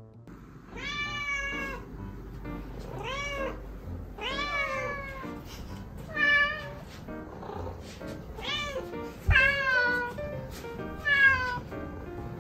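Domestic cats meowing repeatedly, about seven meows in turn, each rising and falling in pitch, the later ones louder, as they beg for a lickable treat.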